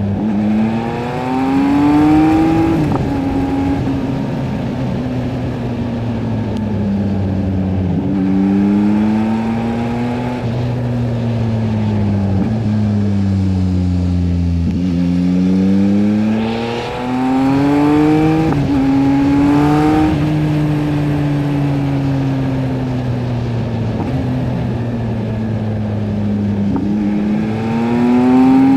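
2023 Yamaha MT-09 SP's 890 cc three-cylinder engine running through a LeoVince LV Race exhaust while riding. The engine note climbs and falls repeatedly: rising at the start, again about eight seconds in and about fifteen seconds in, holding fairly steady for a while, then rising again near the end.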